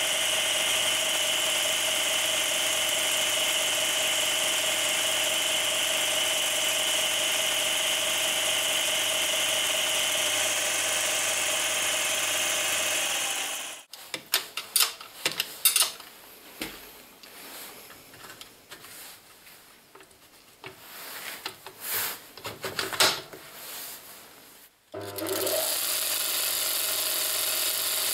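Belt grinder converted from a 350 W bench grinder running with its abrasive belt, a steady hum and whir. About halfway it stops, giving way to scattered clicks and knocks of handling, then it starts again a few seconds before the end with a short rising whine and runs steadily.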